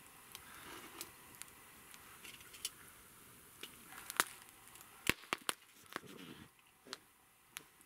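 Wood campfire crackling and popping with scattered sharp clicks, and a few louder knocks and clatter about four to five and a half seconds in as the burning logs are poked with metal fire tongs.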